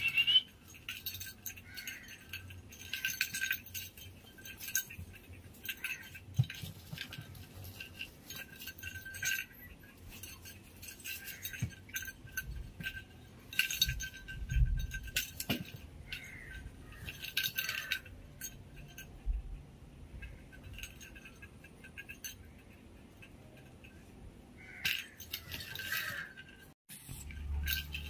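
Tinsel-trimmed cat wand toy rustling and clinking in short bursts as it is waved and batted by kittens.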